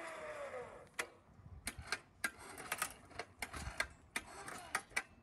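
Electric hoist motor on a homemade well-drilling rig winding down, its whine falling in pitch and dying away within the first half second. Then a run of irregular sharp clicks and light taps, about two or three a second.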